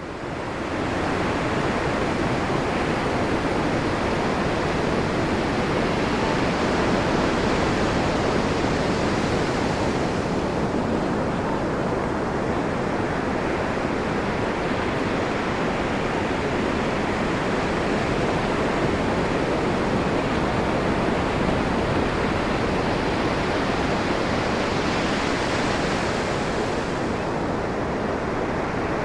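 Ocean surf breaking and washing ashore as a steady rushing hiss, swelling brighter twice as waves wash in. It fades in over the first second.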